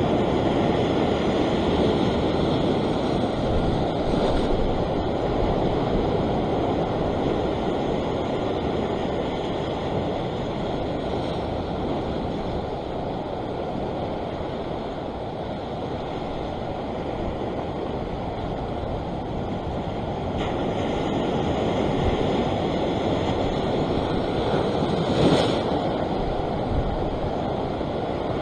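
Ocean surf breaking and washing over a rock ledge: a continuous rush of water that eases for a while and then builds again, with wind on the microphone. A brief sharp knock near the end.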